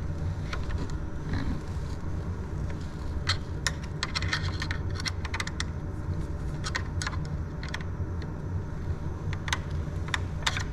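Small wrench clicking and scraping against a nut and the metal parts of a 3D printer's tool dock while the nut is being tightened. Sharp light clicks come in an irregular run from about a third of the way in, over a steady low hum.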